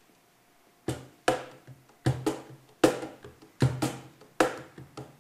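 A classical guitar strummed with a cajón beating under it, an instrumental intro starting about a second in. Each strike pairs a low thump with the guitar's chord in a steady, even rhythm.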